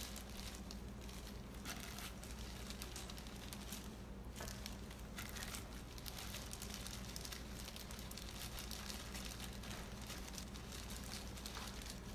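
Thin disposable plastic gloves crinkling as hands squeeze and roll sticky rice into small balls, soft and irregular, over a faint steady low hum.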